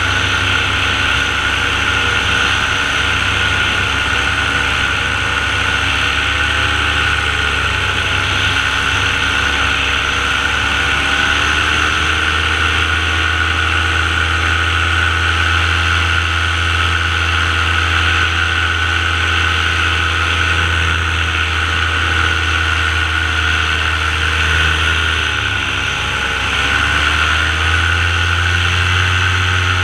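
Small aircraft engine and propeller of a powered paraglider running steadily in flight. The pitch sags and recovers a few times, most deeply near the end.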